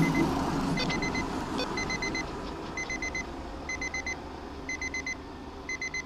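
Electronic alert beeping: quick bursts of four short high beeps, repeating about once a second over a steady low rumble, as part of an emergency weather alert.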